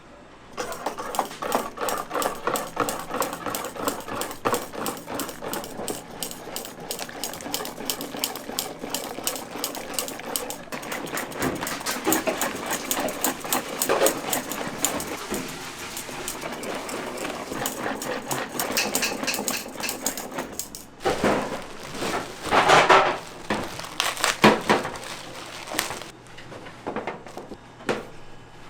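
Rapid, steady run of clicks and taps from kitchen work, with a few louder, noisier bursts near the end.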